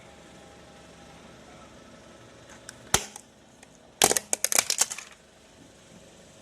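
A small electronic gadget's plastic casing and glass cracking as a car crushes it: one sharp crack about three seconds in, then a quick run of cracks and snaps lasting about a second.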